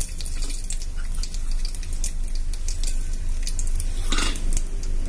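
Hot cooking oil foaming in a steel kadhai, sizzling with scattered small pops and crackles. About four seconds in there is a short, louder sizzle as the panch phoron spices hit the oil.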